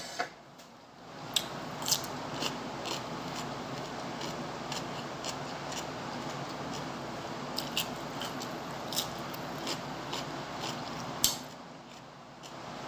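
A person chewing crunchy food: irregular sharp, crisp crunches about one to three a second over a steady background hiss, with the strongest crunch near the end.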